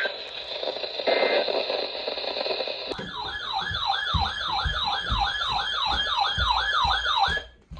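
Static-like radio hiss with a steady high tone. About three seconds in, a siren starts in a fast yelp, rising and falling about two and a half times a second, then cuts off suddenly near the end.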